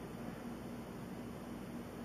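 Steady background hiss with a faint low hum and no distinct sound event.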